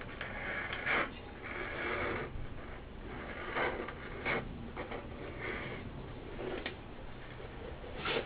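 A small blade scraping at the edge of a woofer cone, clearing off the old foam surround, in short irregular scratchy strokes with pauses between them and one longer scrape about a second and a half in.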